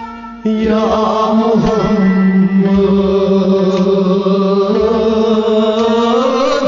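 Devotional kalaam sung in praise of the Prophet: a voice singing over a steady held drone. It comes back in loudly about half a second in, after a brief lull.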